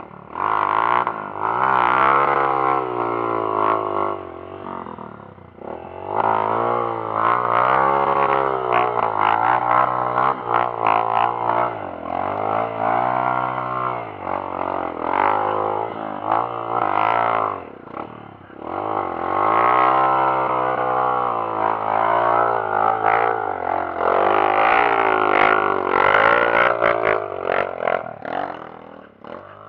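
Trail motorcycle engine revving hard and unevenly as it is ridden, its drone rising and falling in pitch with the throttle. It drops back twice, about five seconds in and again around eighteen seconds.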